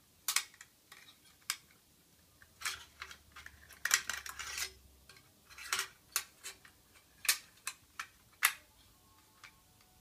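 Irregular metallic clicks and clatters of an SSD being slid into and seated in a metal hard-drive caddy, a dozen or so sharp taps, the loudest about two thirds of the way through.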